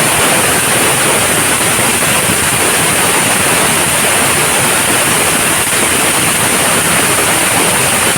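Dragon Fireworks 'Dance of Fireflies' firework fountain spraying sparks with a loud, steady hiss, its burn lasting over a minute.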